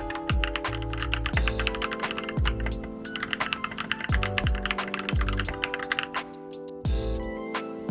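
Fast typing on an Akko Doraemon 3068 mechanical keyboard, a rapid run of key clacks that thins out to a few scattered keystrokes about six seconds in. Background music with a steady kick drum plays throughout.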